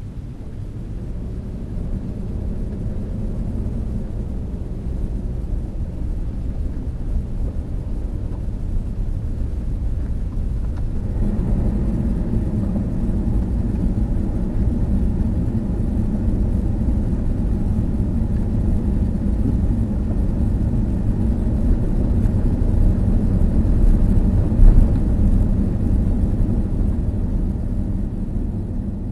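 A vehicle driving: steady low engine and road rumble that grows louder about eleven seconds in, with a single thump a few seconds before the end.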